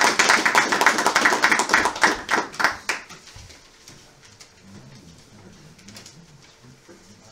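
Audience applauding, the clapping dying away about three seconds in, followed by faint low voices.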